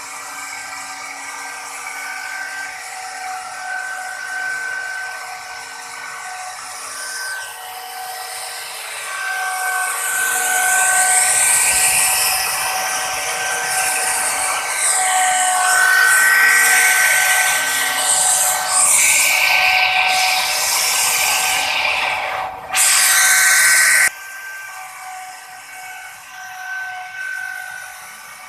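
Handheld electric plunge router running with a steady high whine while its bit cuts a decorative groove into a wooden panel. The cutting noise grows louder about a third of the way in, with a sudden loud burst for about a second near the end, then eases back to the motor's whine.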